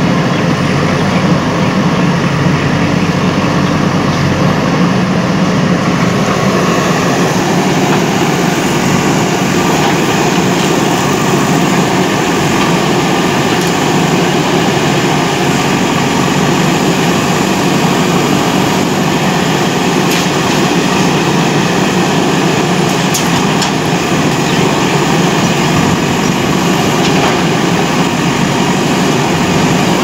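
JCB 3DX backhoe loader's diesel engine running loudly and steadily while its backhoe arm digs into earth.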